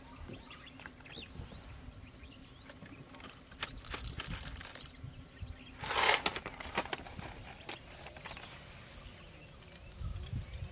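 Small clicks and knocks of coffee gear being handled and set down on a table, with one brief louder clatter about six seconds in, over a steady high chirring of crickets.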